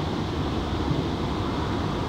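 GWR 14xx-class 0-4-2 tank locomotive No. 1450 running in with its train of coaches: a steady rumble with no distinct exhaust beats.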